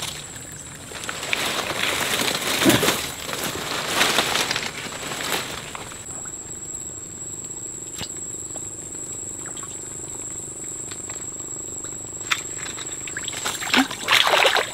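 Leaves and branches rustling in repeated bursts as a person pushes and pulls through dense swamp vegetation. After a quieter stretch, water splashes near the end as a climbing perch (papuyu) strikes the bait under a float.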